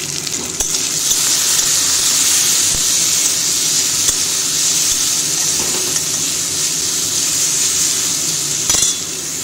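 Diced potatoes frying in mustard oil in an aluminium kadai, stirred with a metal spatula: a steady sizzling hiss that grows louder about a second in, with a few clicks of the spatula against the pan, some near the end.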